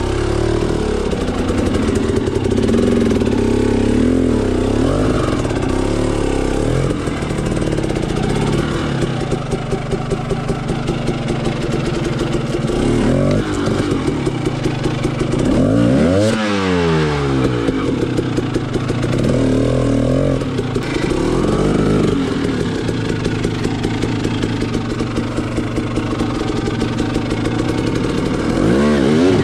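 Dirt bike engine running at low speed, its revs rising and falling again and again as the throttle is worked up a narrow eroded rut. About sixteen seconds in it revs sharply up and back down.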